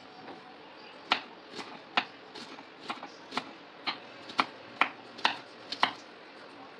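Kitchen knife chopping on a cutting board, dicing onion, garlic and ginger: a run of sharp taps, about two a second, starting about a second in.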